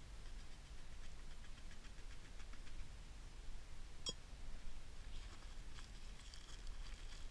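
Faint crinkling and rustling of a plastic bag being handled as powdered milk is tipped into a steel camp mug, with a single sharp click about four seconds in.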